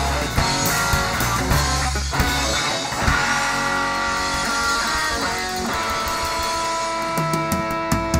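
Live country-rock band playing an instrumental passage without vocals: acoustic and electric guitars with bass guitar and drum kit. About two and a half seconds in the bass and drums drop away, leaving guitar chords ringing out, with scattered drum hits near the end.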